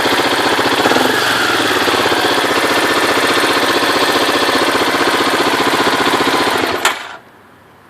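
Baja 250 engine idling with a rapid, even knock that the owner places in the cylinder head. A brief rise in revs about a second in; about seven seconds in there is a click and the engine cuts off.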